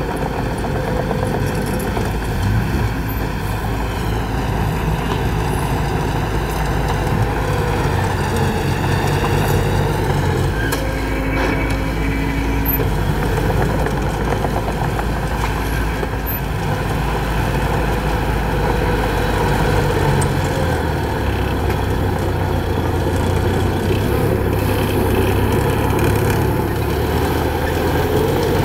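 Mini Komatsu crawler dozer's diesel engine running steadily as the dozer pushes dirt and rock.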